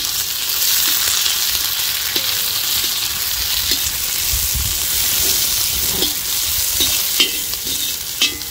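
Sliced shallots and dried red chillies sizzling steadily in hot cold-pressed oil in a large kadai, with a perforated metal ladle scraping the pan now and then as they are stirred.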